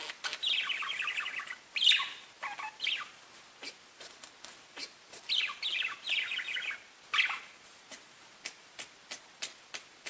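Pet budgies chirping and warbling: two stretches of rapid chattering warble with a sharp louder call between them, then a run of short single chirps about three a second near the end.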